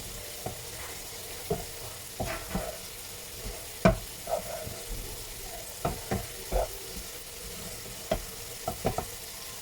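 Chicken and onion filling sizzling in hot oil in an uncovered pan, with irregular knocks and scrapes of a spoon stirring it against the pan, the sharpest about four seconds in.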